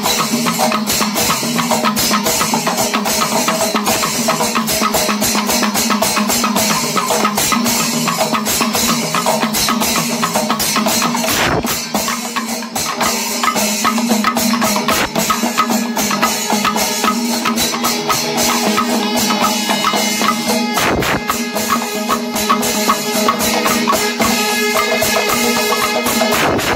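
Panchavadyam temple ensemble playing: fast, dense drumming with cymbal strokes over a steady held tone, thinning briefly about twelve seconds in.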